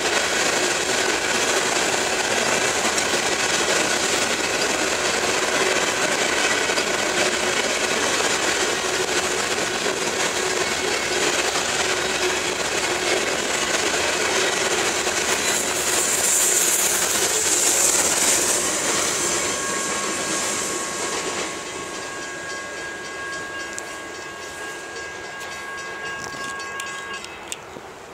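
A loaded coal train of hopper cars rolling past, its wheels clattering on the rails in a steady rumble. After about twenty seconds the sound fades as the end of the train goes by, with a thin steady high tone heard during the fade.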